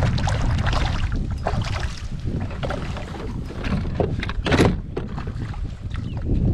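Kayak on open water: small splashes and knocks against the hull, with a louder knock about four and a half seconds in, over a steady low rumble of wind on the microphone.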